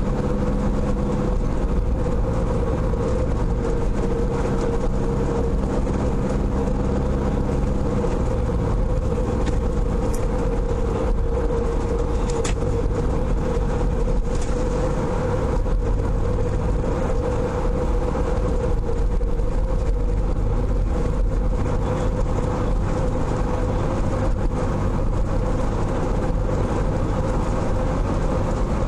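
Car running along a road, heard from inside the cabin: a steady engine hum with road and tyre noise and a constant drone.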